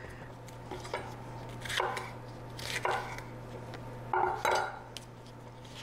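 Chef's knife slicing a red pepper on a wooden cutting board: several knocks of the blade meeting the board, about a second apart, with two close together near the end.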